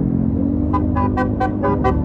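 Tour bus's Basuri telolet horn playing a quick tune of short, repeated notes, about five a second, starting a little under a second in, over the low running of the bus engine.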